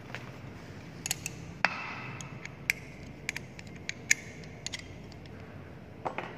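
Irregular sharp metallic clicks and clinks as hand tools and bolts knock against a centrifugal pump's bearing housing during reassembly. The loudest clink, about a second and a half in, rings on for over a second, and another rings briefly near the end.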